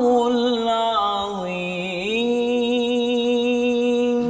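A man recites the Quran in melodic tarannum style. He sings a wavering phrase that slides lower about a second and a half in, then holds one long, steady note that ends the recitation.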